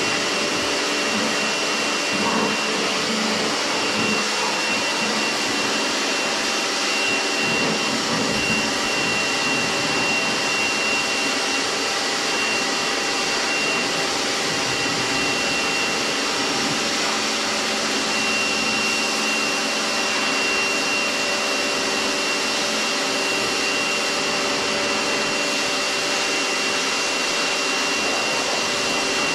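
Kärcher electric pressure washer running steadily, its motor and pump giving a continuous whine over the hiss of the spray.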